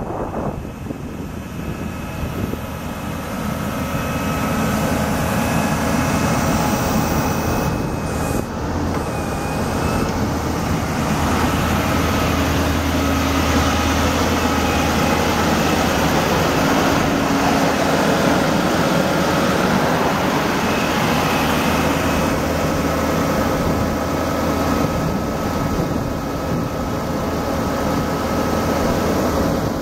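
A GMC C5500 bucket truck's Duramax 6.6 L V8 diesel running steadily while the hydraulic aerial boom moves. The engine gets louder about four seconds in, and a faint steady whine comes and goes over its hum.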